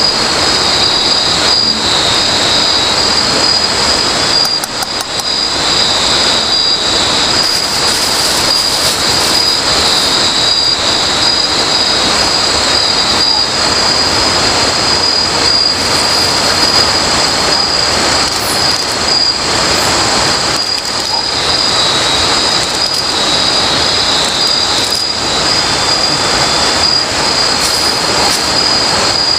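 A loud night insect chorus making a steady high-pitched shrill drone, over a constant hiss.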